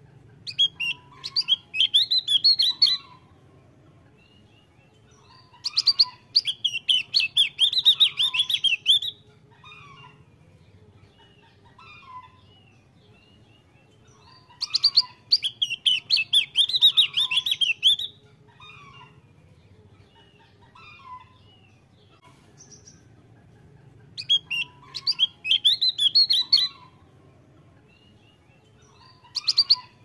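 Javan grey-throated white-eye (opior jawa) singing: five bursts of rapid, high chattering song, each a few seconds long, with softer short lower notes in the pauses between them.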